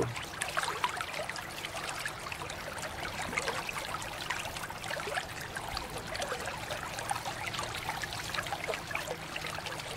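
A steady stream of running water splashing over a plastic toy truck as it is rinsed and rubbed by hand, and spattering into a shallow basin of water below.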